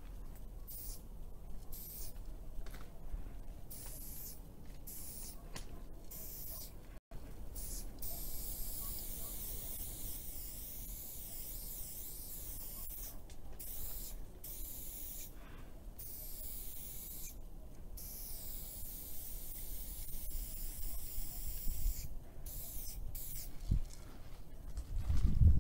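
Spray paint can hissing in short strokes, starting and stopping as a graffiti tag is written. A louder low rumble comes in near the end.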